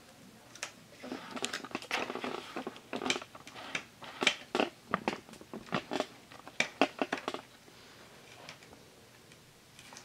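A hard plastic attachment of a Hoover Rewind upright vacuum being taken off and handled: a run of irregular plastic clicks and taps with some rustling, which stops about seven and a half seconds in.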